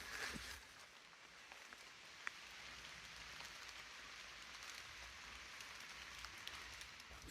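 Footsteps on the trail stop about half a second in. Then comes a faint, steady hiss of water in the forest, with one sharp drip-like tick about two seconds in.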